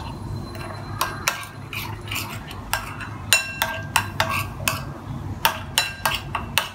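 Metal spoon stirring a thick sauce marinade in a ceramic bowl: irregular scrapes and clinks of metal against the bowl, a few ringing briefly about three seconds in.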